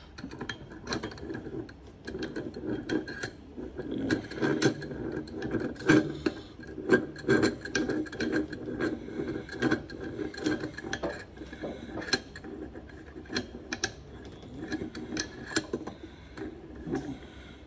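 A metal aerosol spray can being handled and set down on a hard plastic stand, making irregular clicks, taps and knocks of can against plastic.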